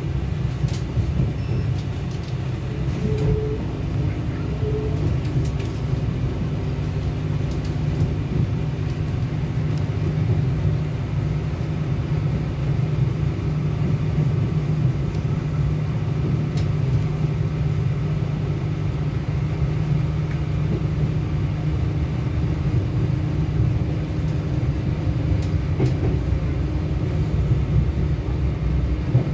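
Cabin running noise aboard a Northern Ireland Railways Class 4000 (C4K) CAF diesel multiple unit: a steady low rumble of the underfloor diesel engine and the wheels on the rails as the train runs, with a faint steady hum coming in a few seconds in and occasional light clicks.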